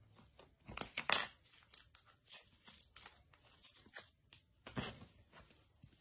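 Adhesive sticker film being peeled from its backing and pressed down by hand, a series of short tearing and crinkling rasps, loudest about a second in and again near the five-second mark.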